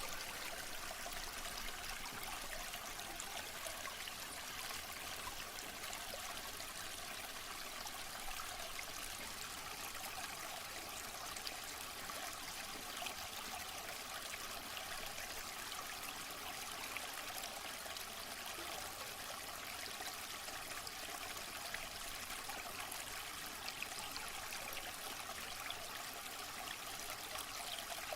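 Waterfall: falling water splashing and rushing steadily, a bright, even hiss with little deep rumble.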